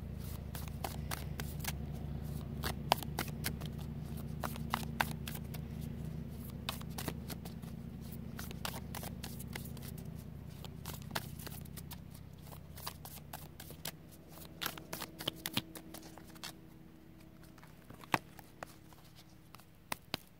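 Tarot cards with a velvety finish being shuffled by hand: many irregular soft clicks and flicks of card on card. A low steady hum runs beneath and fades after about the middle.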